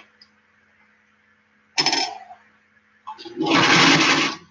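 Old electric sewing machine as it jams up on the seam. There is a sharp mechanical clank about two seconds in, then the machine runs in a short burst of about a second near the end and stops.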